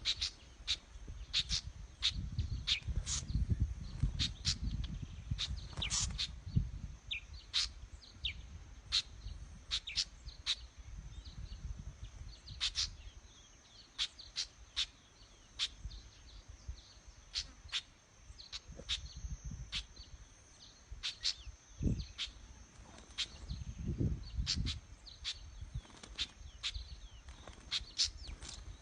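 Small birds giving sharp, repeated alarm calls, several a second, as birds do when mobbing a snake. Bouts of low rumble come and go beneath the calls.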